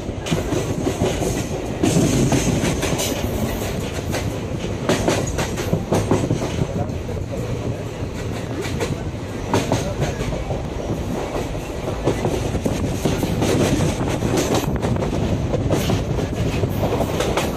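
Indian Railways passenger train running at speed: a steady rumble of wheels on rail, crossed by a rapid, irregular clatter as the wheels pass over rail joints.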